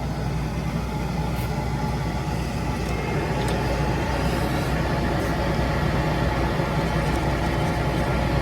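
Monarch engine lathe running with a steady mechanical hum, getting slightly louder about three seconds in.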